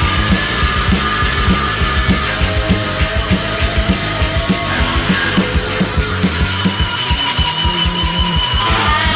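Rock music with a steady, driving drum beat and sustained guitar or synth lines.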